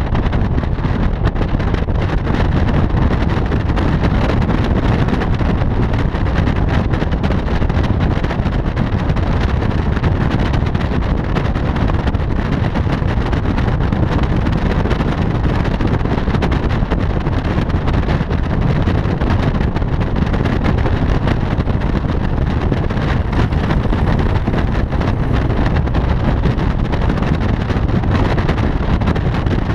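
Steady rush of wind buffeting a microphone on the roof of a car speeding down a runway, with low road and engine rumble beneath; no single engine note stands out.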